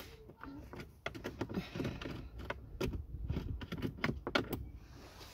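Irregular small clicks, taps and rattles of hands and a screwdriver working at the plastic dashboard trim around the glove box opening, starting about a second in.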